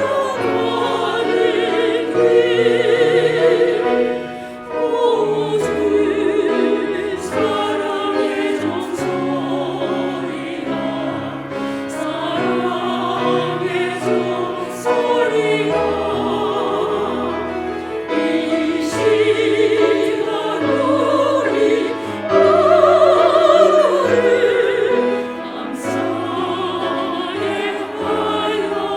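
A women's vocal ensemble sings a hymn in parts, holding long notes with vibrato over low accompanying notes.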